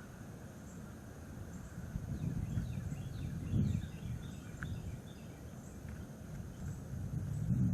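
Outdoor nest-cam ambience: wind gusting against the microphone with a low rumble that swells twice, under faint, evenly repeating high insect chirping. A small bird twitters briefly in the middle.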